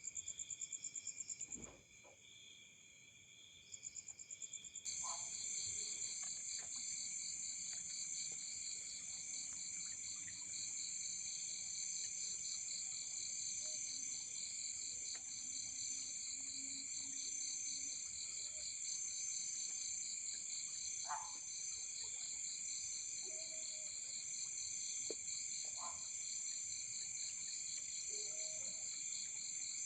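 Forest insect chorus at night: several insects trilling steadily at different high pitches, one with a fast pulsing trill. It mostly stops for about three seconds near the start, then all resume, with a few faint scattered clicks.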